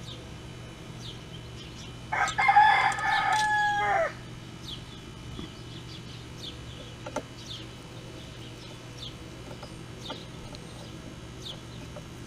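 A rooster crows once, about two seconds in, a call of about two seconds that ends on a falling note. Small birds chirp faintly throughout.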